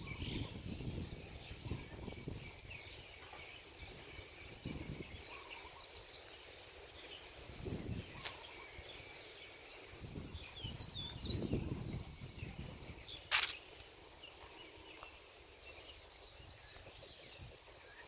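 Small birds chirping and calling here and there in the garden trees, over irregular low gusty rumbles on the microphone. A single brief sharp sound about two-thirds of the way through is the loudest moment.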